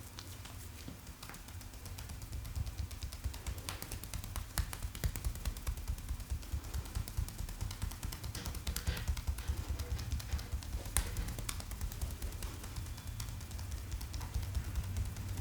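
Hands tapping and patting rapidly on a head in a percussive head massage: a fast, dense run of soft thumps that starts about two seconds in, with sharper clicks here and there.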